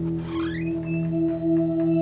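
Background score of soft ambient music: sustained, gently pulsing tones with a short rising glide near the start and a higher tone coming in about halfway through.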